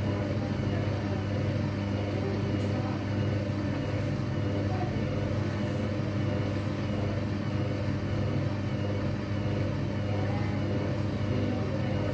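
Hoover washing machine on its spin cycle, the drum turning at a steady speed with a steady low hum.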